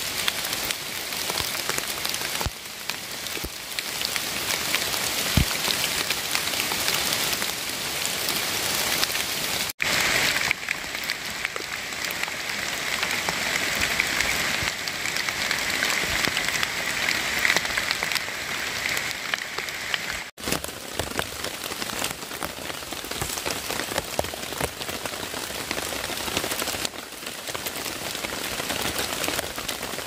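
Steady rain falling on forest foliage and leaf litter, a dense even patter of drops. It is broken twice by brief gaps.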